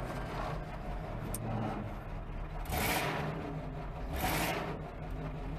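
Lincoln Continental's V8 engine running steadily as the car rolls along slowly, heard from inside the cabin. Two brief swishing noises come about three seconds in and again about four and a half seconds in.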